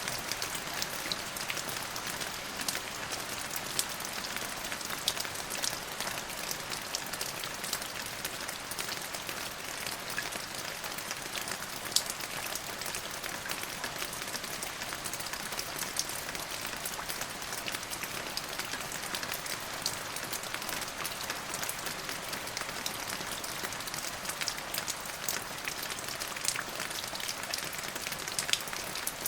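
Steady rain falling on a hard surface, an even hiss with many individual drops ticking through it.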